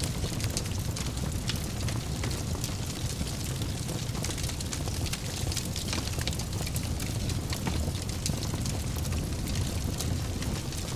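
Fire burning in a fireplace: a steady low rumble of flames with frequent small crackles and pops throughout.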